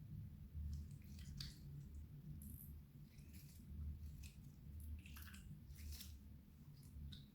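Clear slime being squished and stretched by hand, giving faint, scattered sticky clicks and little pops over a low background hum.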